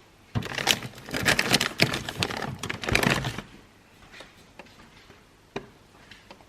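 Clattering and rustling of objects being handled for about three seconds, then a few faint single clicks.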